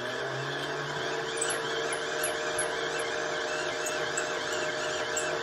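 Hand-cranked Hitachi insulation tester's generator whirring at a steady pitch as it is cranked, held at the speed where its 250 V setting puts out just under 300 V.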